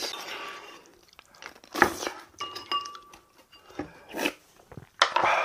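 Wooden spoon scraping and knocking against a ceramic bowl: a scrape at first, then several sharp clinks, one followed by a brief ringing of the bowl.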